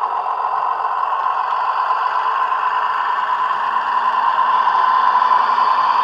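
Bachmann Class 117 DMU model's DCC sound decoder playing the diesel engine sound through two megabass speakers as the train runs. The engine note is steady and grows slightly louder toward the end.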